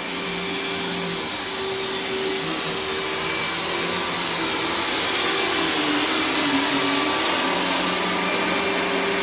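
Vacuum cleaner running steadily on carpet, its motor whine sagging briefly and recovering as the load changes.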